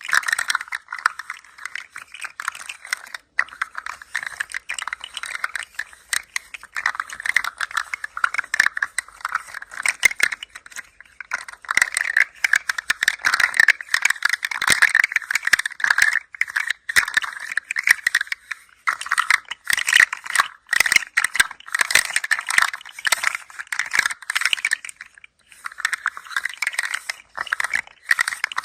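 Toy rattling as it is moved: a dense stream of small clicks in long runs, with a few short breaks.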